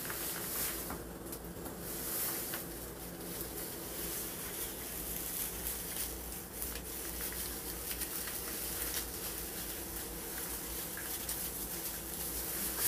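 Gloved hands rubbing and squishing texturizer cream through short curly hair, a soft continuous rustling with a few light clicks, over a faint steady hum.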